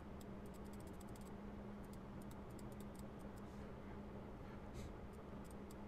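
Faint, irregular clicking from computer input devices as brush strokes are applied in Photoshop: a quick run of clicks about the first second, then scattered single clicks. A low steady hum sits underneath.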